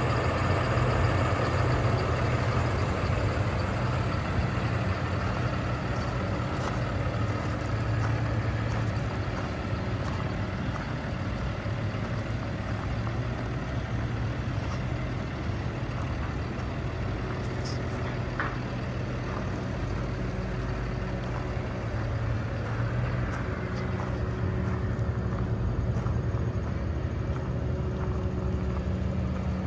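Cummins ISB six-cylinder diesel of a 2017 International 4300 rollback truck idling steadily.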